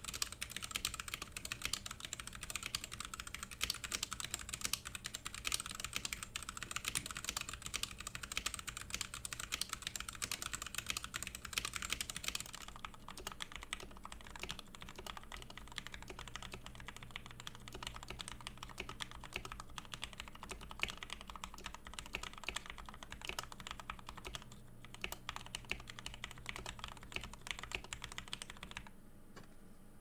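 Fast, continuous typing on a Womier K87 mechanical keyboard with Gateron Brown switches. For the first twelve seconds or so it is the stock board, its keystrokes louder and brighter. Then it is the modded board (switches and stabilizers lubed with Krytox 205g0, case foam, clipped stabilizers), its keystrokes quieter and duller. The typing stops about a second before the end.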